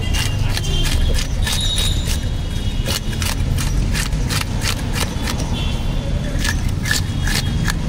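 Scales being scraped off a large catla with a toothed fish scaler: quick repeated rasping strokes, about two or three a second, over a steady low rumble.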